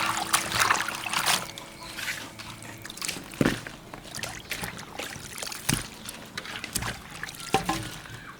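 Water trickling and sloshing, with scattered sharp knocks and clicks.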